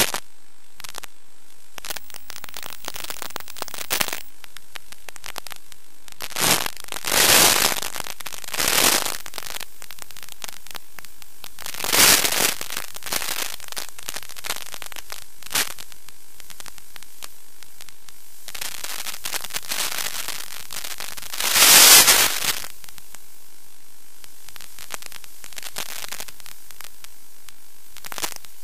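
Steady hiss of static from an analog FPV video receiver's audio channel, with several louder crackling bursts, the loudest about three-quarters of the way through. The bursts come as the radio video link breaks up.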